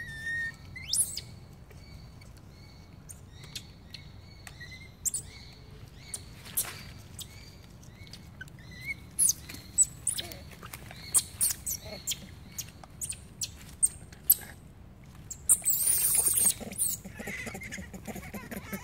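Long-tailed macaques shifting about in dry leaf litter: scattered rustles and ticks with short high chirps, and about three-quarters through a harsh, shrill squeal lasting about a second.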